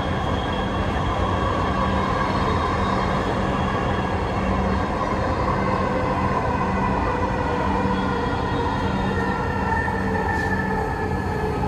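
Dhaka Metro Rail electric train heard from inside the passenger car while running: a steady rumble of wheels on the track with an electric motor whine, the whine dropping slightly in pitch over the last few seconds.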